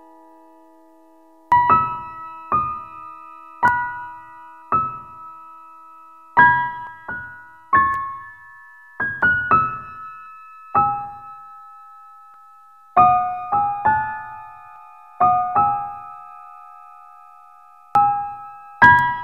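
Background music on a piano-like keyboard: a held chord fades out, then a slow melody of single struck notes, each left to ring and die away, with brief pauses between phrases.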